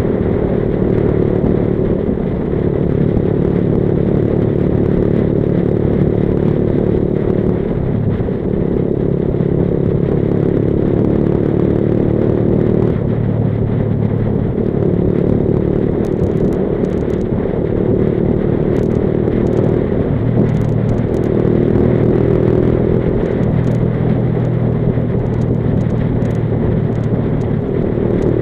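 Onboard sound of a Junak motorcycle's engine running steadily while riding, with a short dip in the engine note every few seconds.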